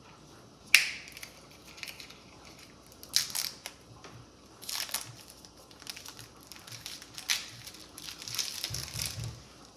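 Plastic wrapping crinkling and crackling in irregular bursts as it is pulled off a new refrigerator water filter, the sharpest crackle about a second in.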